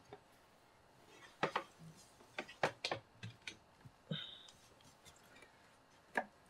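Scattered light clicks and knocks as a computer power supply's mains cable and plug are handled and plugged in, with a brief high squeak about four seconds in.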